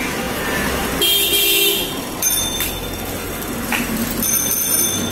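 Street traffic over a low engine rumble. A vehicle horn honks about a second in, and high ringing tones sound twice later.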